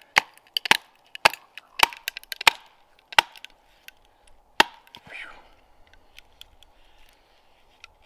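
A wooden baton knocking on the spine of a bushcraft belt knife to drive it through a wrist-thick stick of very dense, dry firewood. There are six sharp knocks about two a second, then one more after a short pause. The wood is slow to split.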